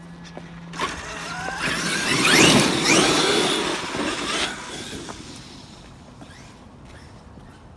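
Traxxas X-Maxx 8S electric RC monster truck accelerating past through snow, its motor whine rising in pitch over a rushing noise from the tyres. It swells from about a second in, is loudest around two and a half seconds, then fades away.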